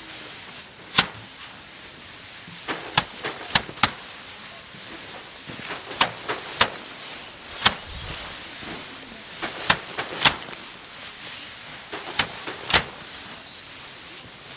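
Sharp, crisp strikes of hand rice-harvesting work, irregular and often in quick runs of two to four, over a steady hiss.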